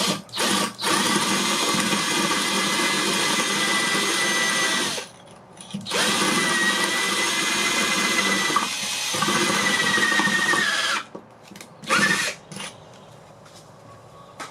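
Power drill with a 3/16-inch masonry bit boring into stucco: two long steady runs of about four to five seconds each, with short trigger blips at the start and again near the end.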